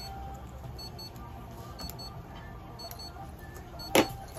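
Faint short electronic beeps repeating in pairs over a steady low hum, with one sharp click about four seconds in.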